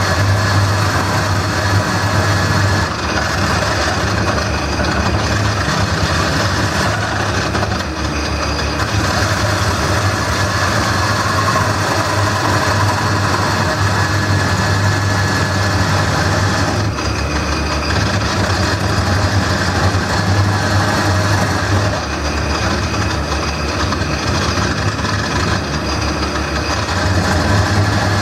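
Wood lathe running with a steady motor hum while a gouge cuts into the spinning bowl blank, a continuous rough cutting noise that eases and picks up every few seconds as the tool is moved.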